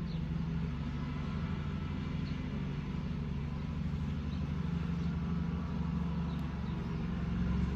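Lawnmower engine running steadily, a continuous low drone.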